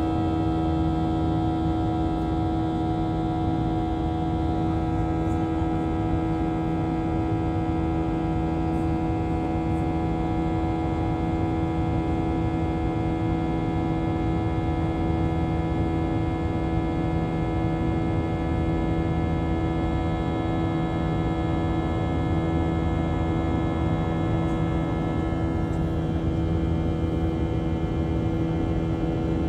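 Cabin noise of a Boeing 737-800 in flight, heard from a window seat beside the wing: the CFM56-7B turbofan engines make a steady drone with several steady humming tones held throughout.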